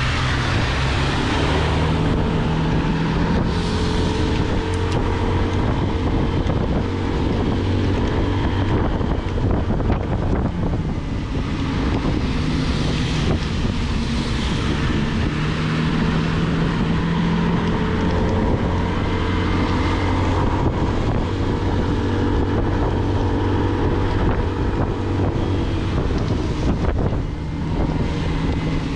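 Motolux MTX 125 motorcycle engine running under way, its pitch rising and falling a little with the throttle, under steady wind noise on the microphone and the hiss of tyres on a wet road.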